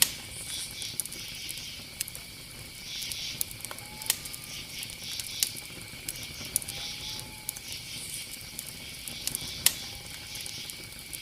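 Bonfire crackling, with sharp irregular pops over a hiss; one pop near the end is louder than the rest.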